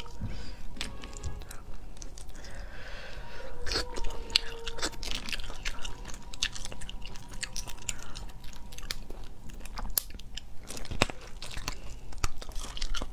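Close-miked eating of cooked crab claws: chewing and crunching, with sharp clicks and cracks of shell as the meat is picked out, coming at irregular moments.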